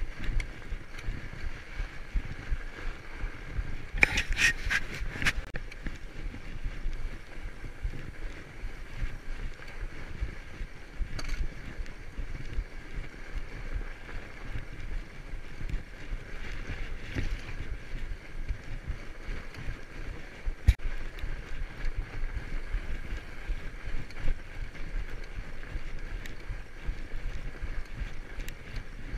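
Fatbike riding along a packed snow trail: steady rolling noise of the fat tyres and bike with a low rumble, and a quick run of sharp clicks about four seconds in.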